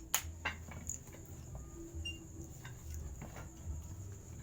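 Scattered light clicks and taps over a steady, high-pitched cricket trill and a low hum.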